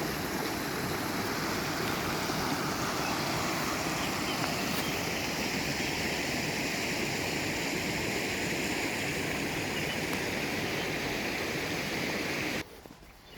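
Stream water rushing steadily in an even, full noise. It cuts off abruptly shortly before the end, giving way to a much quieter background.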